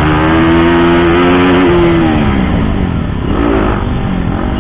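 KTM RC 200's single-cylinder engine and exhaust, the stock silencer modified for a louder note, running under steady throttle while riding. The revs fall away about halfway through, then rise and fall briefly twice near the end.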